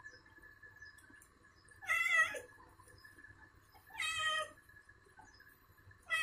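A cat meowing as it is lathered with shampoo during a bath. It gives two short meows about two seconds apart, and a third begins right at the end.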